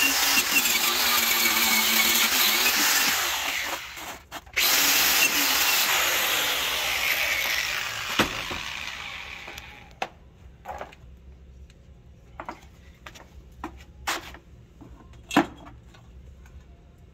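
Corded angle grinder scouring a steel differential cover, letting off briefly about four seconds in, then running on and spinning down with a falling whine. After that, a few light knocks and clicks.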